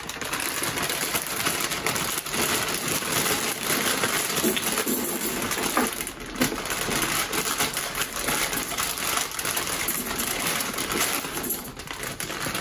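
Plastic bag of frozen French fries crinkling as it is shaken, with the fries clattering into the plastic basket of an Instant Vortex Plus air fryer.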